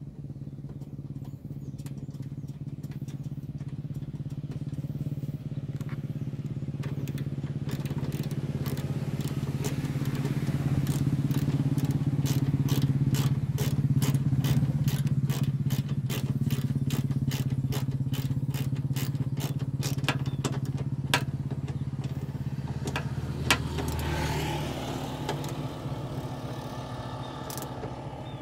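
Ratchet wrench with a 10 mm socket clicking steadily, about three or four clicks a second, as a bolt is run into a bonnet gas-strut bracket. Under it the steady hum of a motor vehicle engine grows louder towards the middle and then fades away.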